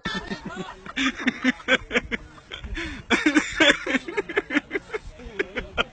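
Several people's voices talking and calling out over one another, with short knocks and scuffs among them.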